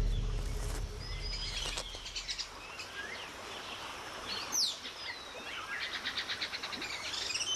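Rainforest ambience: several birds chirping and whistling. Near the end there is a quick, even run of notes, about eight a second. A low rumble at the start fades out.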